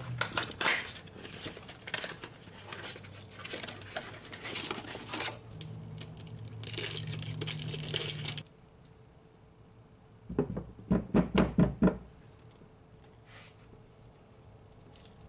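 Cardboard oil filter box (STP S6607XL) being torn open and the new spin-on oil filter pulled out, a run of crinkling and tearing that stops about eight seconds in. A quick series of about six knocks follows around ten to twelve seconds in as the filter is handled.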